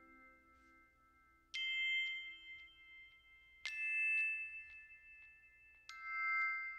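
Three struck bell-like chime notes about two seconds apart, each ringing on at a high pitch, as the last notes of the music die away.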